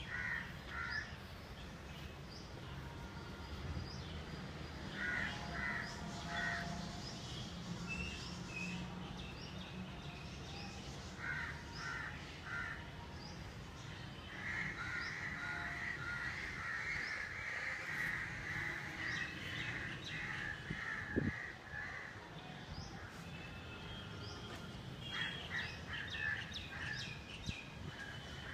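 Birds calling outdoors in short groups of three or four calls repeated every few seconds, with a longer stretch of continuous calling about halfway through.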